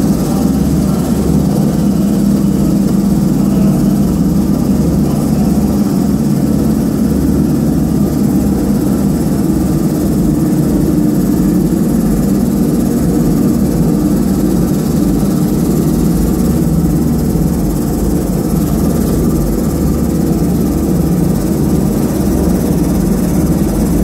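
Maxis carpet washing machine running, its horizontal drum spinning: a loud, steady machine hum that holds unchanged throughout.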